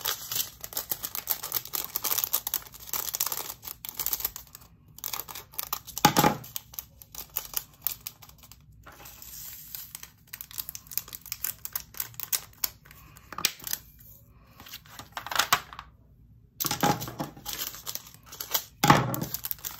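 Thin plastic zip bags of diamond-painting drills crinkling as they are handled and snipped open with scissors, with small clicks and rattles as the little round drills are tipped into clear plastic storage containers. Irregular, with several louder bursts of rustling.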